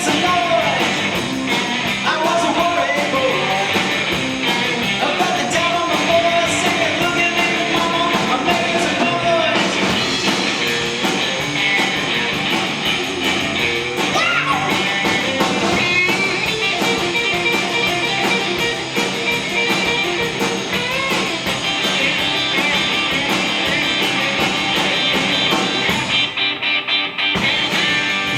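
Rock band playing live: guitar over drums and cymbals, with some singing.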